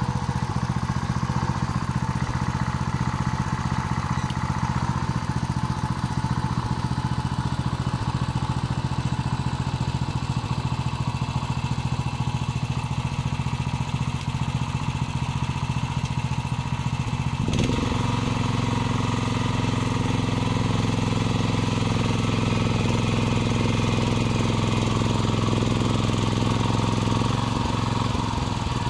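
Engine of a Ferrari walking tractor running steadily while driving a BCS rotary tiller through the soil. The sound changes abruptly about two-thirds of the way through.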